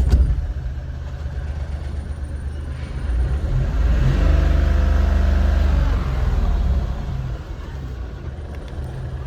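Mahindra Bolero BS6's diesel engine, loud right as it comes to life, then idling. About three seconds in it revs up, holds for a few seconds, and drops back to idle.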